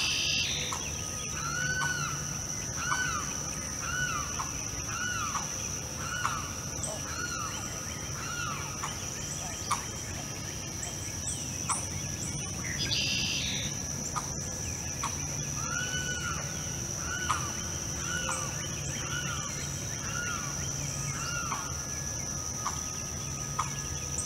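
Limpkin calling: two runs of repeated loud notes, each rising and then falling in pitch, about one and a half notes a second, with a pause of several seconds between the runs.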